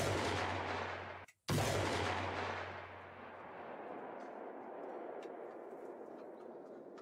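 Two loud heavy-weapon blasts, one at the very start and another about a second and a half in, each trailing off into a long rolling rumble.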